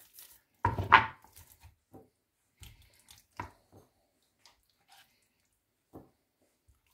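A rack of raw marinated pork ribs turned over and slapped down onto a cutting board about a second in, followed by faint wet dabs and clicks as fingers scoop marinade from a bowl and rub it into the meat.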